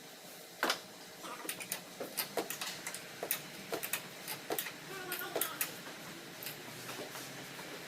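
Hand tools clicking and tapping on metal car parts: irregular light clicks and knocks, a few each second.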